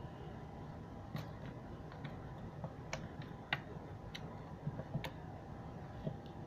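Faint, irregular small clicks and pops from hands squishing and stretching clear slime filled with plastic beads.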